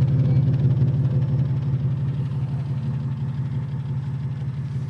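Mitsubishi Pajero II's 3.5-litre V6 engine running steadily at low revs, a little quieter over the last couple of seconds.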